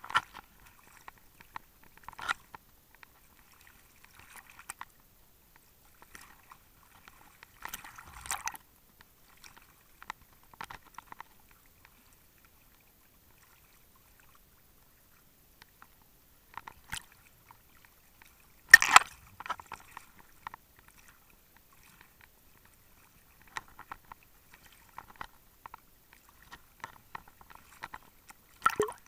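Small waves slapping and splashing against a waterproof camera housing bobbing at the water's surface, in scattered short bursts with quiet gaps between. The loudest splash comes about nineteen seconds in, and the splashing grows busier near the end.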